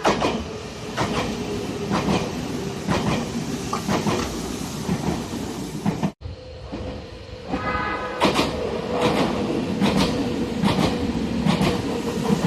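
Nagano Electric Railway express train passing, its wheels clacking in a steady rhythm over rail joints. The sound breaks off about six seconds in. About a second and a half later a train horn gives one short blast, and another train passes with the same clacking.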